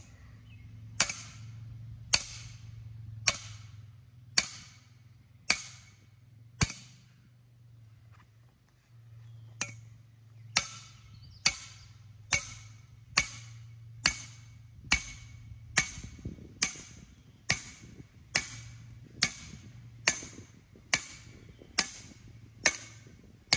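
Sledgehammer striking the thick steel cap of a base driver seated in a galvanized steel mailbox-post base, driving the base into the ground. About twenty sharp metallic strikes, each with a short ring: six about a second apart, a pause of some three seconds, then a quicker, steady run of strikes.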